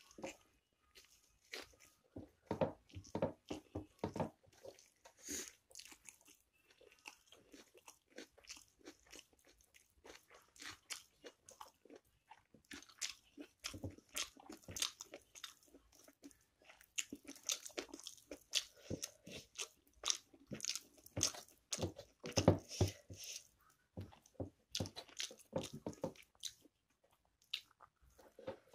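Close-up eating sounds: fingers mixing rice and chicken curry on a metal plate and chewing of handfuls of rice, a dense run of short irregular clicks, busier in the second half.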